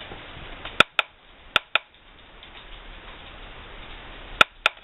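Three pairs of sharp clicks, the two clicks in each pair about a fifth of a second apart, from small hard plastic filter parts and caps being handled on a scale.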